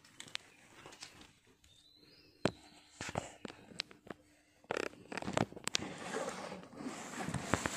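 Scattered knocks and clicks of handling noise, with one sharp knock about two and a half seconds in and clusters of clicks and rustling later on.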